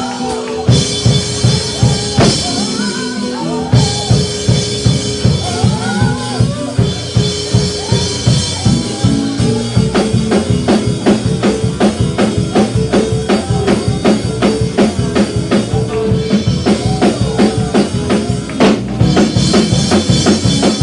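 Live gospel praise-break music: a drum kit with kick and snare drives a fast beat under held keyboard chords and melodic runs. The drumming gets denser about ten seconds in.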